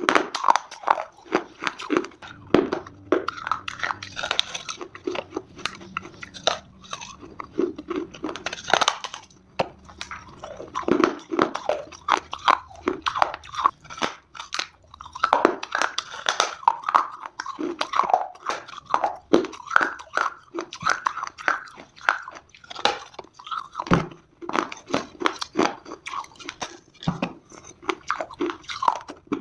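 Multani mitti (fuller's earth clay) being bitten and chewed close to the microphone: a dense, irregular run of sharp crunches and crackles.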